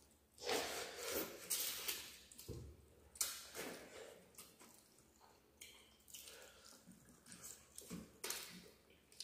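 Close-up eating sounds: wet chewing, lip-smacking and squishing as people eat rice and fish curry with their hands, in irregular bursts.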